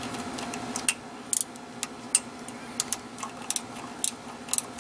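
Small steel wrench and pinion shaft lock bolt clicking and clinking against the differential carrier as the bolt is worked in by hand: many short, irregular metallic clicks.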